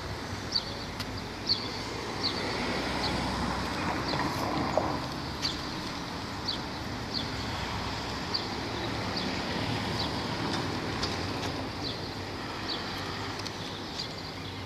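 Street ambience: a steady hum of road traffic, swelling a little a few seconds in, with a bird repeating short, high chirps about once a second.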